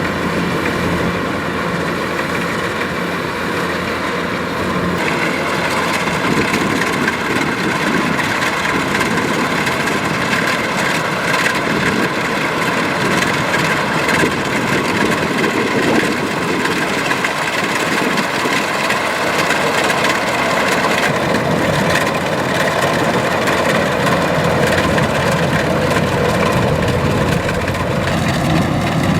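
Kubota DC-105X combine harvester running steadily, its diesel engine and machinery making a continuous dense mechanical sound whose upper tones shift slightly about 5 seconds in and again about 21 seconds in.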